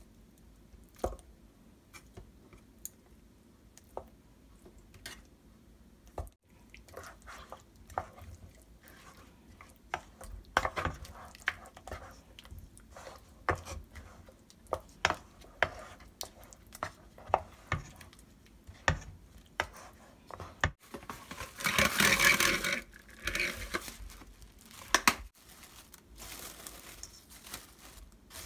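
Pieces of beef short rib dropped into marinade in a stainless steel bowl and tossed by hand, with wet squishes and scattered knocks against the metal bowl. A little past two-thirds of the way, a loud crinkly rustle of plastic wrap being pulled off the roll and torn, then softer crinkling as the wrap is stretched over the bowl.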